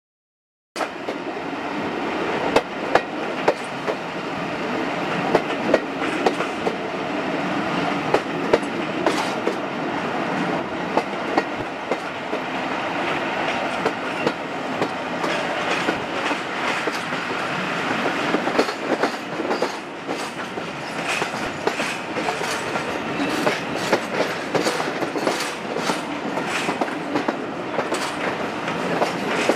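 Passenger train running, heard from the side of a moving coach: a steady rumble of wheels on rail with frequent sharp clicks and clacks as the wheels cross rail joints and points. It starts suddenly about a second in.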